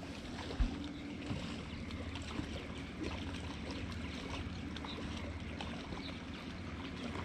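Small fishing boat on the water: a steady low hum with water noise and a few faint clicks.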